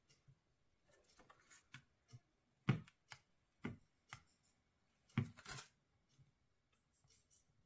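Light taps and clicks of hands handling a plastic screen-protector alignment frame and the protector on a phone, with the two loudest knocks about two and a half and five seconds in.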